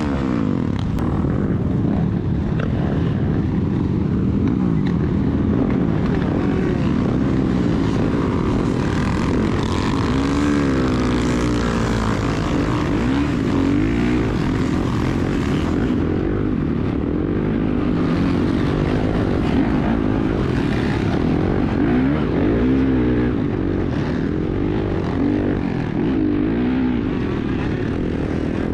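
Several dirt bike engines running and revving at once, their pitch rising and falling.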